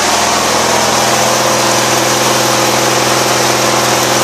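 Zero-turn mower engine running steadily, driving a homemade bandsaw mill through its hydrostatic drive, with the blade and rubber-tired wheels spinning.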